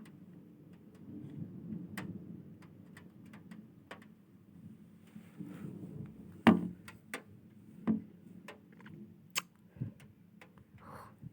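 Strong wind gusting in a low, swelling rumble, with scattered sharp clicks and knocks; the loudest knock comes about six and a half seconds in.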